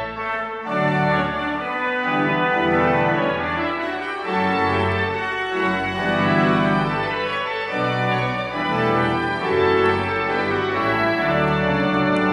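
1922 Wangerin pipe organ playing sustained full chords, the harmony changing every second or so, after a brief break just at the start.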